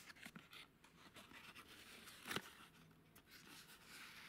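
Faint rustling and scraping of an old cardboard valve box as its end flap is folded open by hand, with one sharper crackle a little over two seconds in.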